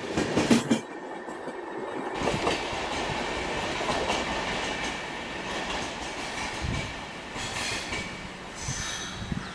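Passenger express train passing at speed: the last coaches' wheels clatter quickly over the rail joints, then cut off sharply about a second in as the train clears, leaving a steady rolling rumble that slowly fades as it moves away.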